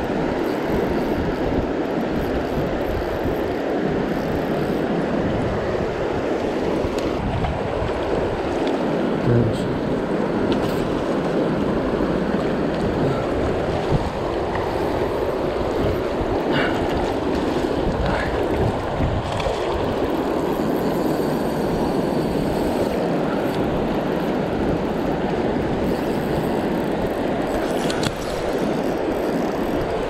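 Fast mountain river current rushing steadily around the legs of a wading angler.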